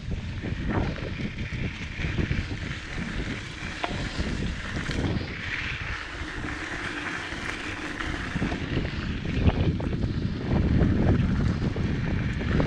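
Wind rushing over the microphone while a Diamondback Mission 2 mountain bike rattles and knocks as its tyres run fast over a rough dirt trail. The rumble and knocking get louder about ten seconds in.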